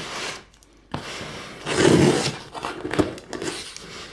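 Scissors slitting and scraping along paper packing tape on a cardboard box: a sharp snip about a second in, then a few seconds of rasping, tearing noise, loudest about two seconds in.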